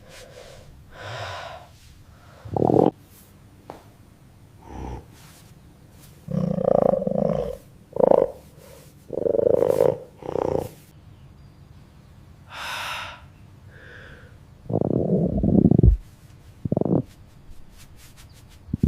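A series of AI-generated stomach growls: about ten short rumbles and gurgles, each a second or less, with quiet pauses between them.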